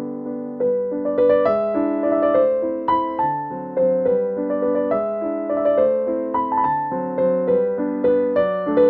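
Background music: a piano playing a gentle melody over chords, its notes struck one after another and fading away.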